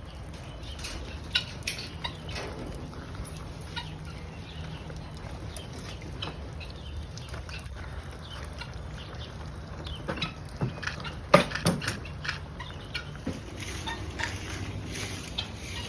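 Birds, fowl by the sound, calling in short scattered calls over a steady low hum, with one sharp knock about 11 seconds in.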